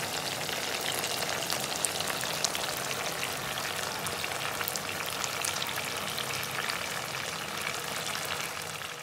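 Chicken karahi frying in hot oil in a karahi pan: a steady sizzle with many small crackling pops.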